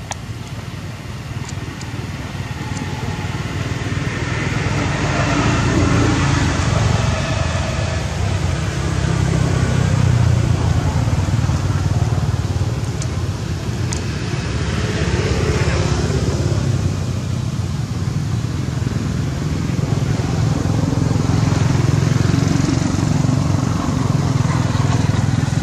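Motor vehicle traffic: a steady engine rumble that grows over the first few seconds, then swells and fades several times as vehicles pass.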